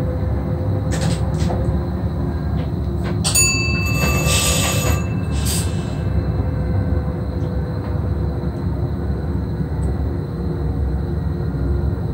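SGM Sprinter electric multiple unit running along the track, heard from the driver's cab: a steady low rumble with a faint hum. A brief high ringing sound with a clatter comes about three seconds in and fades out a couple of seconds later.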